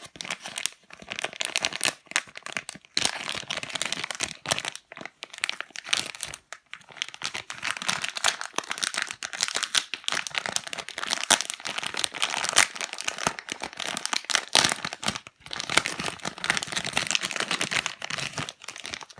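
Plastic packaging crinkling and tearing as it is handled, a dense run of crackles with a few short pauses.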